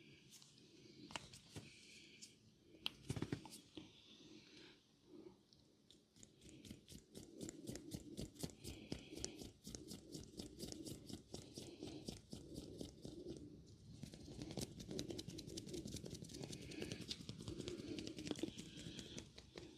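Oiled hands rubbing and kneading skin close to the microphone: rapid wet crackling and squishing, sparse at first with a heavier stroke about three seconds in, then dense and continuous from about six seconds in.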